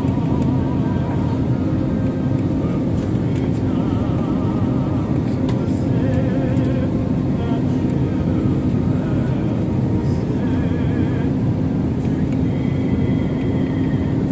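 Jet airliner cabin noise on final approach: the engines and rushing air make a loud, steady noise with a constant low hum throughout.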